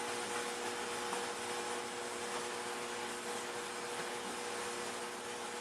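Steady whooshing noise with a faint, even hum underneath, unchanging throughout.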